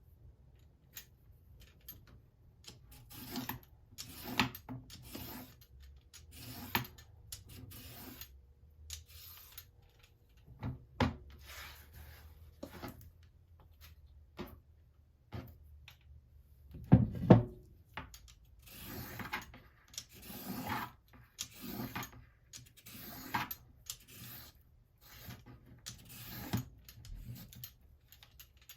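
Vegetable peeler scraping down a carrot in repeated strokes, about one a second and irregular, with a louder knock about seventeen seconds in.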